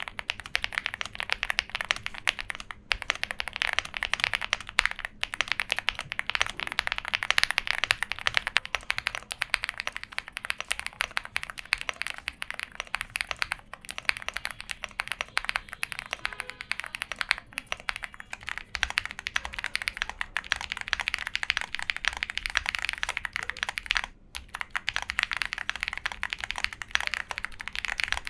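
Fast, continuous typing on a Chilkey ND75, a CNC-aluminium 75% mechanical keyboard: a dense patter of keystrokes with a few brief pauses.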